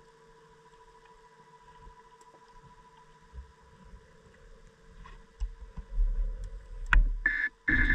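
Underwater, a faint steady whine hangs behind occasional small clicks. Low rumbling builds over the last few seconds, a sharp knock comes about seven seconds in, and at the very end a diver propulsion vehicle's motor starts loudly, its pitch rising as it spins up.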